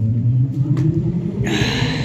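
Bass-heavy music played loud through a line array and a Subscoop D15 subwoofer loaded with a Grandmaster 1000-watt driver, the sub's low bass notes dominating. A brighter, higher sound joins about a second and a half in.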